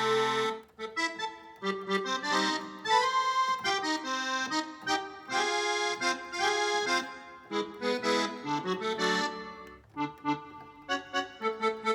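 Accordion voice on a Korg N264 keyboard workstation playing a melody over chords, in short phrases with brief breaks between them.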